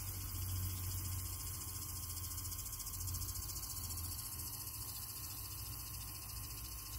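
Steady high insect trilling, as of crickets, over a low rumble.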